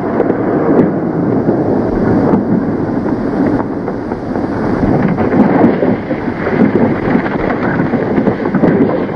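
Loud, continuous rumbling rush of a speeding car on a dirt road, on an old 1930s film soundtrack.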